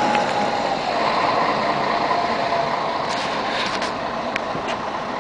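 Articulated city bus pulling away from the stop, its engine running with a drivetrain whine that falls in pitch about a second in. The sound fades a little as the bus moves off, with a few light clicks in the second half.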